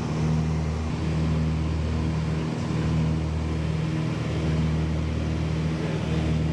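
Steady drone of a light aircraft's engine and propeller heard inside the cabin, a low hum with a steady higher tone above it.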